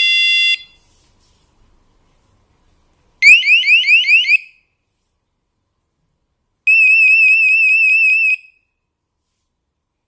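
Electronic alarm tones from the WP6 alarm system's tone options, played one after another: a steady two-note beep that cuts off about half a second in, then a run of quick rising whoops about three seconds in, then a fast warbling tone near the end, each lasting one to two seconds.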